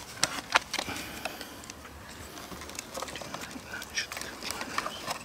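Plastic wiring connectors on a Sur-Ron Light Bee electric motorcycle's battery being handled and pushed home: a few sharp clicks in the first half second, then scattered lighter clicks and fumbling.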